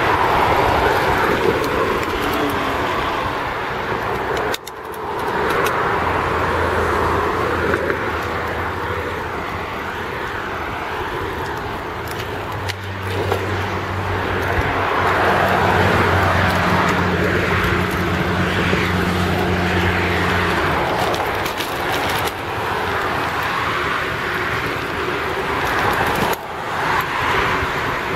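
Street traffic noise: a steady rush of road and vehicle sound, with a low engine hum through the middle. The sound drops out briefly twice.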